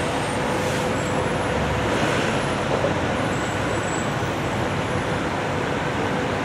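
Street traffic noise with a car rolling slowly past at low engine speed, a steady, even rumble and hiss with no distinct events; the car seen is a red Ferrari V12 coupe.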